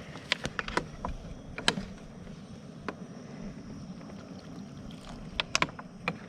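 Steady low rushing background noise with a handful of sharp clicks and knocks scattered through it, the loudest a little under two seconds in and a quick cluster near the end.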